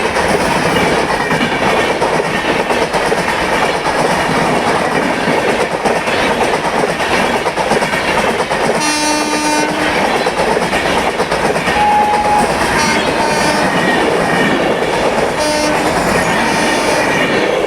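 Indian Railways train running on the track with a steady rumble and wheels clattering over the rails. About nine seconds in, the locomotive horn sounds for about a second, and shorter horn blasts follow later.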